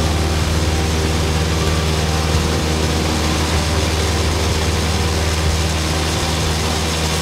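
Cessna 152's four-cylinder Lycoming engine and propeller heard from inside the cockpit, a steady drone with wind noise, on short final approach to landing.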